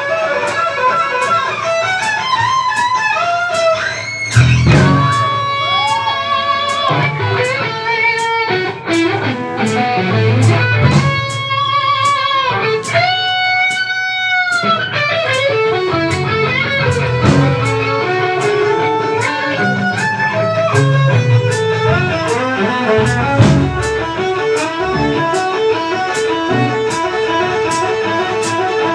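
Live jazz-rock fusion band playing: electric guitar lead lines, with sustained, bending notes near the middle, over bass and a steady drum beat.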